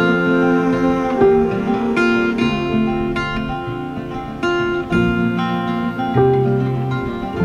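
Background music: an instrumental passage of a pop song, with acoustic guitar strummed about once a second.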